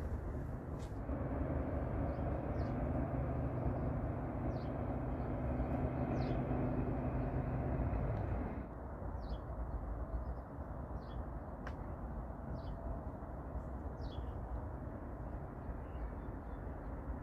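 A motor vehicle's steady engine drone that cuts off abruptly about halfway through, leaving a lighter background hum. Small birds chirp on and off throughout.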